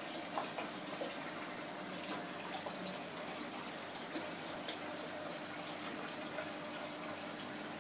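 Aquarium water trickling and bubbling, with scattered small drips and pops over a steady low hum.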